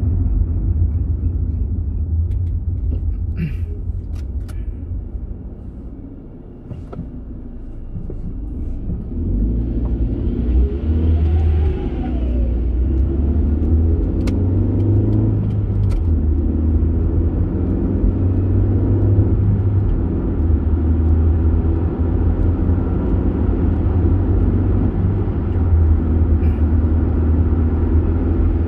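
Car driving at motorway speed: a steady low rumble of road and engine noise that fades for a moment about six seconds in, then builds back up.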